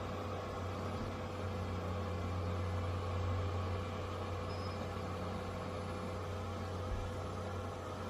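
Dreame H12S cordless wet-dry vacuum mop running steadily in auto mode: an even motor hum with a constant tone and airflow noise.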